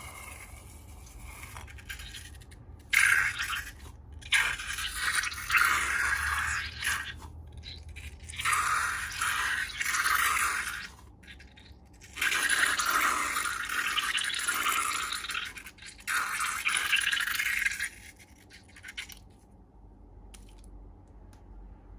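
Slime being scraped and mixed, in several bursts of wet scraping with short pauses between them.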